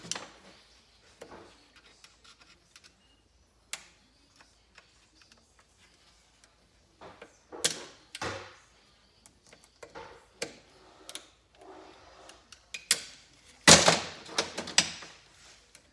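Irregular metallic clicks and clinks of snap-ring pliers working a snap ring off the clutch hub of a 1975 Kawasaki KZ400 engine. A louder cluster of clatter comes a little before the end.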